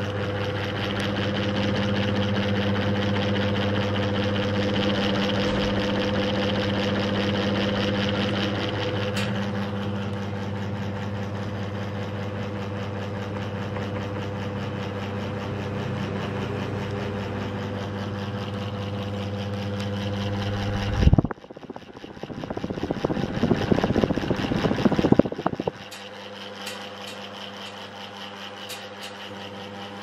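Niga FC05-60 mini ceiling fan running with a steady motor hum and an airy whoosh. About two-thirds of the way through there is a sharp click and the low hum cuts out. A few seconds of rough, uneven rushing noise follow, then a quieter steady whir.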